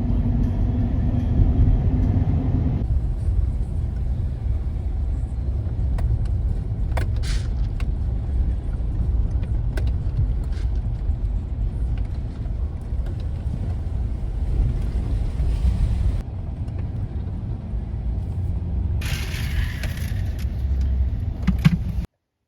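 Road vehicle driving: a steady low rumble with a few light clicks and knocks, cutting off suddenly near the end.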